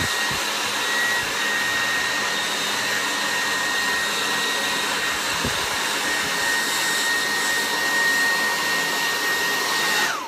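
Handheld hair dryer running steadily: an even rush of air under a constant high whine. It is switched off near the end, and the whine drops as the fan slows down.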